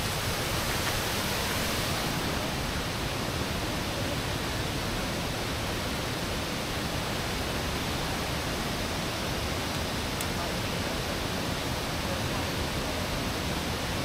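Steady rush of a waterfall's flowing water, an even roar with no change in level.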